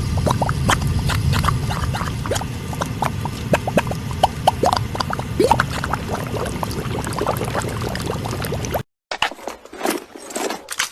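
Steady low rumble and hiss with dense crackling clicks and short chirps scattered through it, cutting off suddenly near the end. After a brief silence come a few sharp, separate sounds.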